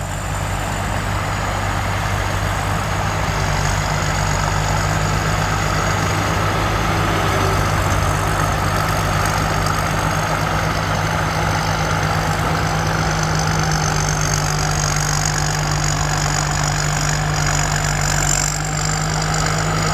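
Combine harvester's diesel engine and drives running steadily under working load while cutting lodged rice, with a steady high whine over the engine.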